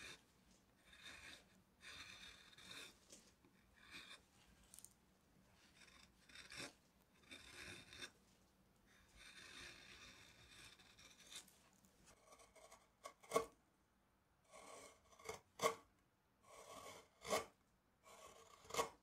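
Hand carving gouge paring curled shavings from tulip tree wood: a series of short scraping cuts, one after another. About two-thirds of the way in, the cuts turn sharper and louder, several ending in a sudden click.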